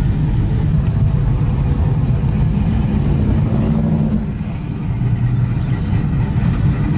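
Pickup truck's engine and road noise heard from inside the cab while driving, a steady low rumble.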